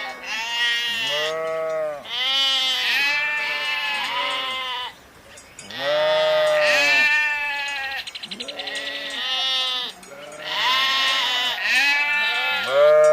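Sheep bleating over and over, several calls overlapping as from a flock. One quavering bleat comes about eight seconds in.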